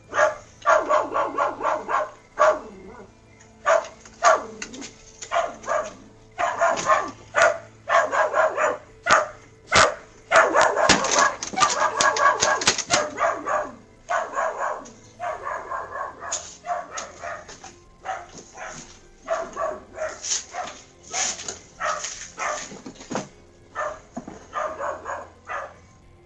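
A dog barking over and over in runs of quick barks, with short pauses between the runs.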